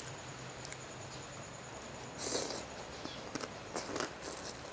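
Close-miked mouth sounds of a person eating rice noodles in a wet pounded salad: a short slurp about two seconds in, then wet chewing and lip smacks near the end.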